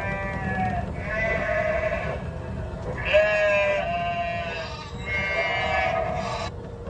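Sheep bleating: about five drawn-out, wavering bleats one after another, each about a second long, the last cutting off abruptly near the end.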